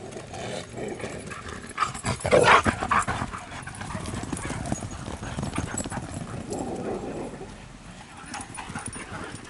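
A group of greyhounds galloping past over grass: a quick, dense patter of paws, loudest as the dogs rush close by about two seconds in.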